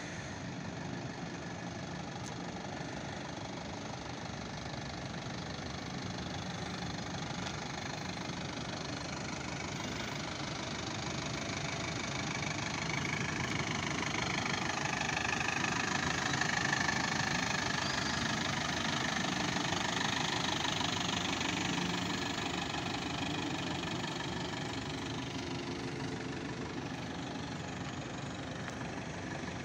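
Diesel engine of an Eicher minibus running as the bus drives slowly around a trial course, growing louder as it comes close about halfway through and fading again as it pulls away.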